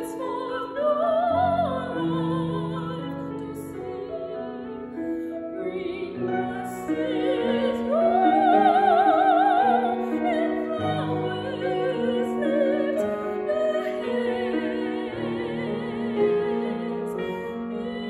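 A female classical singer singing an art song with wide vibrato, accompanied by a Steinway grand piano. About eight seconds in she holds a long high note, the loudest point.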